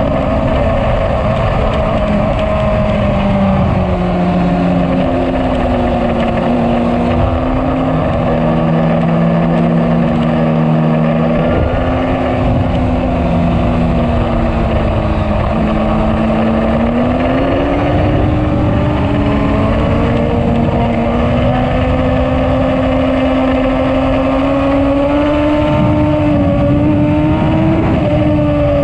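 Kawasaki ZX-10R's inline-four engine running hard on track. Its note climbs and drops with throttle and gear changes over a steady rush of wind noise.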